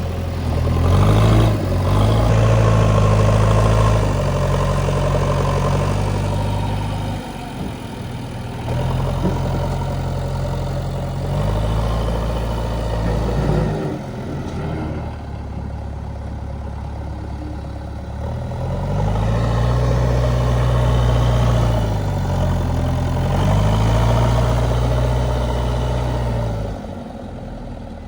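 Diesel engine of an earthmoving machine, working a loading cycle: it revs up under hydraulic load and drops back toward idle, three times over. A couple of brief clunks come early on and near the middle.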